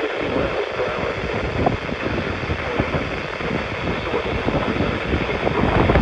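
NOAA weather radio on 162.400 MHz putting out loud steady static hiss with crackling, the broadcast voice lost in the noise.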